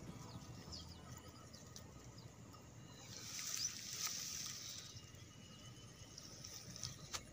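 Faint rice-paddy ambience with scattered short, high chirps. A brief rustling swell comes about three seconds in, and a couple of sharp clicks near the end.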